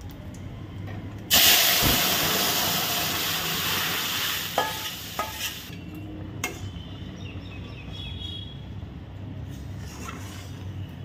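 Boiled dal poured into a kadai of hot oil with tempered cumin seeds, bay leaves and dried red chillies: a sudden loud sizzle about a second in that fades over about four seconds. A few sharp metal clinks of the spatula on the pan follow, then quieter stirring.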